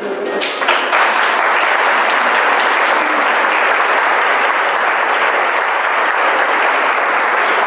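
Audience applauding. A few claps come first, then it swells within the first second into steady, dense clapping.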